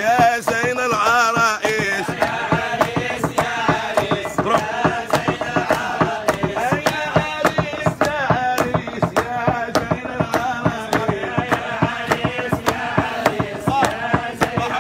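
Arabic wedding nasheed: a male voice sings a wavering, ornamented melody over a steady beat of hand percussion.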